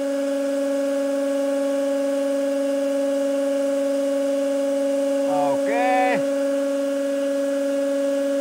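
Hydraulic press pump running with a steady two-tone hum as the ram lowers onto the crank arm, before any load builds. A brief pitched sound that bends in pitch cuts in about five and a half seconds in.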